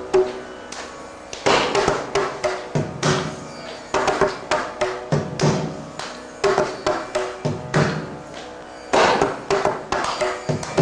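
Mridangam playing fast, uneven flurries of ringing strokes on its tuned right head, mixed with deep low strokes, broken by a few brief lulls.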